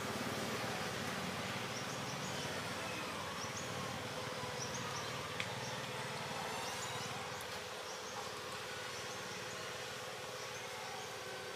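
Outdoor ambience: a steady hum with a low rumble that fades after about seven seconds, and short high chirps now and then. One sharp click about five seconds in.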